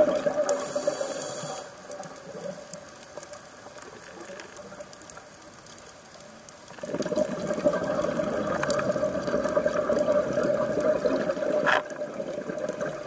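Scuba diver's exhaled air bubbling out of the regulator, heard underwater. A loud bubbling rush in the first second or so, a much quieter stretch of about five seconds, then a second long exhalation from about seven seconds in that eases off near the end.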